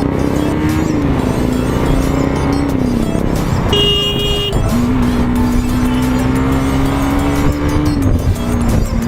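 Motorcycle engine running under way, its note holding steady and then dropping several times as the rider eases off. A short high beep sounds about four seconds in.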